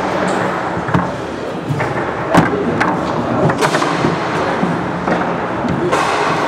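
Foosball play on a competition table: irregular sharp knocks as the plastic men strike the ball and the rods bang against the table, the loudest about two and a half seconds in, over steady room noise.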